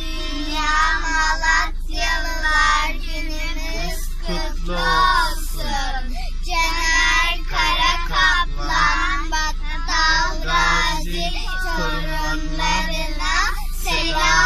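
Children singing a song together in phrases, heard inside a car.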